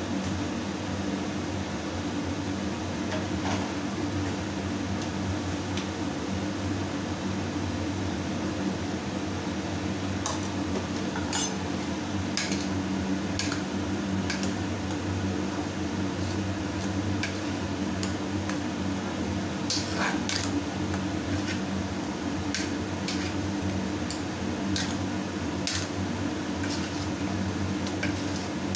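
A metal spoon clinking and scraping against an open aluminium pressure cooker as the curry in it is stirred, in sharp irregular clicks that come mostly after the first ten seconds. A steady low mechanical hum like a fan runs underneath.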